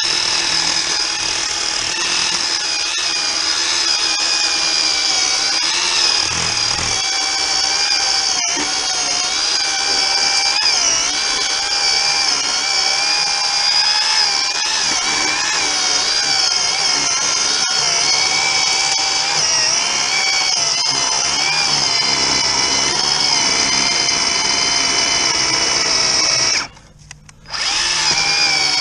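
Worx WG322 20V cordless electric chainsaw with a 10-inch bar cutting through a thick log of hard, solid wood: a steady high motor-and-chain whine whose pitch wavers and dips as the chain bites. Near the end it stops for about a second, then starts again.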